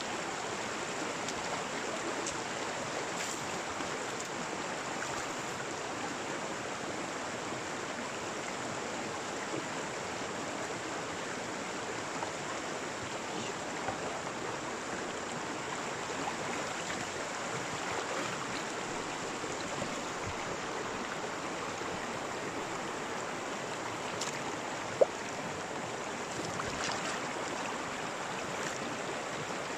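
Steady rush of flowing creek water, with a few faint clicks and one short, sharp clink near the end.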